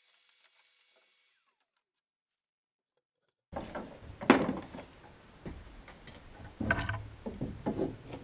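Near silence for about three and a half seconds, then a sudden run of hard knocks and clatter, like tools and building materials being handled and set down. The loudest knock comes just after the sound starts, with a cluster of further knocks near the end.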